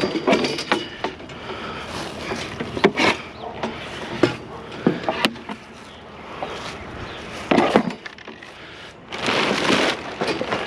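Curbside junk being handled and set back onto a pile: irregular knocks, clatters and scrapes, with a longer scraping, rustling stretch about nine seconds in.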